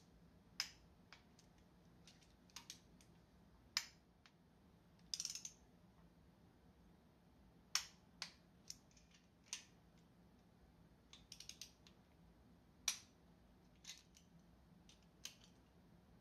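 Sparse light metallic clicks and ticks of a socket wrench on an extension working the oil pump bolts as they are torqued in stages. Quick little clusters of clicks come about five seconds in and again about eleven seconds in.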